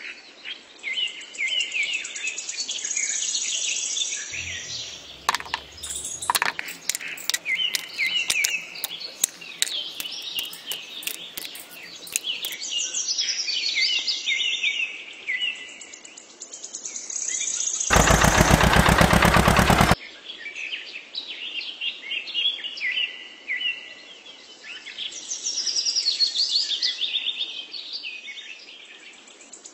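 Small birds chirping and singing throughout. A run of sharp clicks comes in the first half, and a loud harsh rattle lasting about two seconds comes just past the middle.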